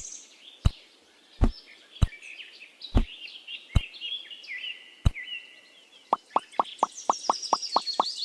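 About six sharp knocks at uneven gaps, with birds chirping behind them. Near the end a quick even run of lighter taps, about seven or eight a second, takes over.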